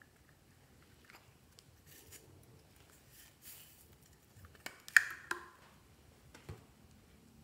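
Small plastic case handled and opened, with its loose sequins and confetti shaken out: faint rustling and ticking, then a quick run of sharp plastic clicks and taps about five seconds in, the loudest sound, and one more click shortly after.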